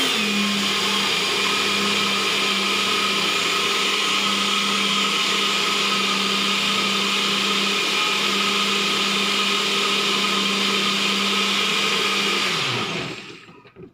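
Personal bullet-style blender running as it blends basil pesto: a steady motor whine that settles to one pitch just after the start, then winds down with a falling pitch and stops near the end.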